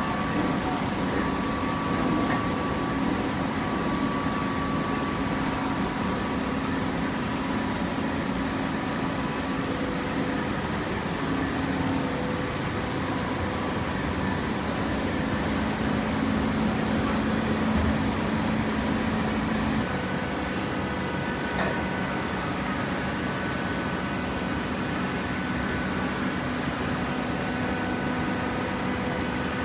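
Automatic hydraulic waste paper baler running: a steady mechanical hum and hiss with whining tones, which change in pitch about two-thirds of the way through.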